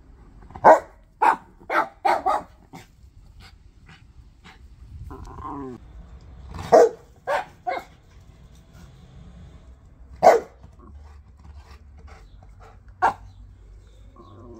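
Bernese Mountain Dog barking up into a tree at squirrels: a quick run of about five barks, a drawn-out cry falling in pitch, then single barks spaced a few seconds apart.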